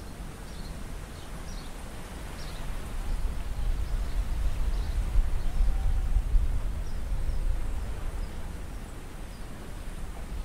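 Outdoor night ambience: a steady low rumble with faint, short high chirps scattered through it, growing louder through the middle and easing off near the end.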